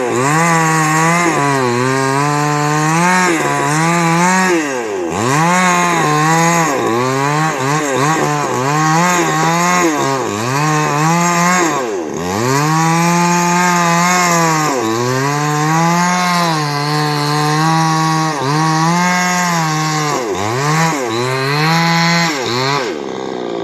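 Chainsaw cutting through wood, its engine note sagging under load and picking back up over and over, then easing off near the end.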